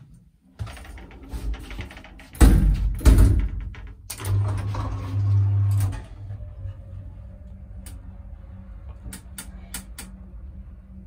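Old one-speed traction elevator: two loud door bangs about two and a half and three seconds in, then a loud low hum for about two seconds. After that the car runs with a steady quieter hum, and a few sharp clicks come near the end.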